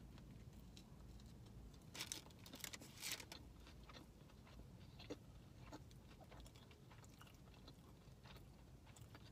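A mouthful of sub sandwich being bitten and chewed, close to the microphone: soft, faint chewing with a cluster of louder clicky chews about two to three seconds in.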